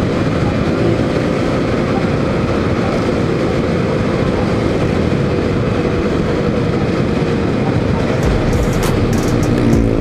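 Motorcycle ridden at a steady cruising speed: constant wind rush on the bike-mounted microphone over the engine's even drone.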